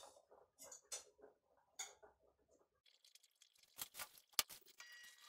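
Faint kitchen clatter: a few light clinks and knocks as a plate of food is picked up and handled, then a steady hiss comes in about three seconds in, with a few sharp clicks near four seconds.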